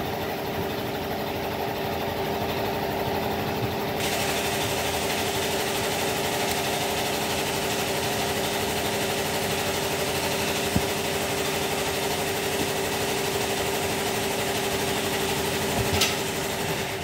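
A motor runs steadily with a hum. From about four seconds in, a hiss of air joins it as the truck tyre's inner tube is given a little air so it will not fold over inside the tyre. There is a sharp click near the end.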